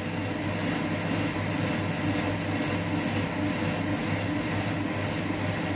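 Hafco TM-26120G lathe running steadily, turning a large hydraulic cylinder rod while the tool takes a cut to machine off its damaged threads.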